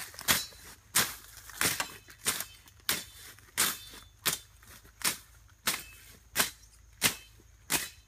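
Machete slashing through grass and weeds in quick, even strokes, about one and a half a second, cutting on both the forward and the back swing.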